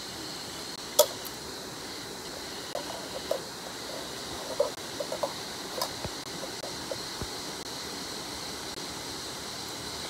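Steady rush of a small waterfall, about 10 m high, pouring into a pool. A sharp click about a second in, and a scatter of small knocks and taps a few seconds later.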